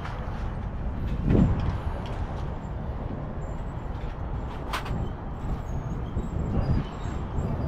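Steady low rumbling background noise, with one short sharp click a little past the middle.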